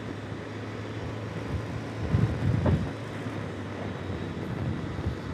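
Benelli TRK 502X motorcycle's parallel-twin engine running at a steady, low hum, with road and wind noise.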